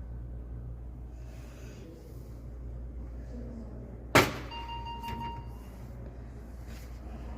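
Canon imageRUNNER ADVANCE C5540i copier being worked on: a single sharp click about four seconds in, then a short steady beep-like tone lasting about a second, over a steady low hum.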